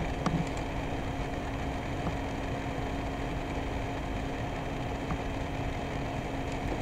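Steady low hum and hiss of background room noise, with a few faint clicks.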